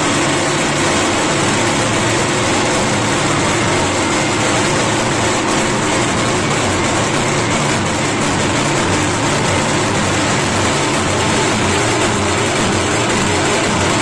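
Loud, steady din of a dense crowd packed into a street, with no single voice or rhythm standing out.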